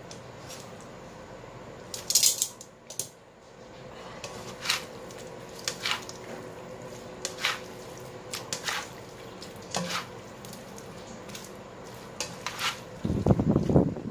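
A spatula scraping and knocking against a stone-coated wok while mushrooms and vegetables are stir-fried, giving sharp clinks every second or so over a steady low hiss. Near the end a louder rumbling noise comes in.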